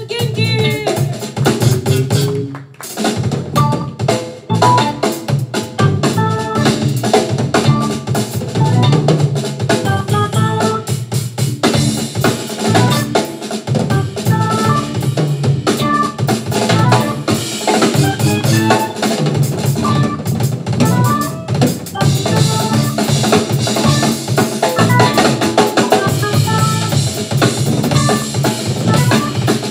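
Live funk band playing: a busy drum kit with kick, snare and cymbals over electric bass and guitar, with a brief break about three seconds in before the groove comes back in.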